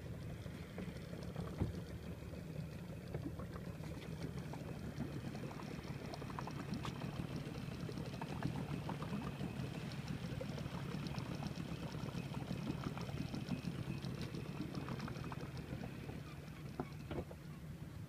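Water lapping and splashing in small irregular ticks against the hull of a small wooden boat, over a steady low hum.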